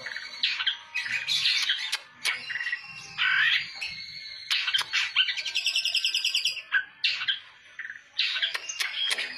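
Long-tailed shrike (cendet) singing a harsh, chattering song of scratchy notes, with a fast, even rattle of about ten notes a second in the middle.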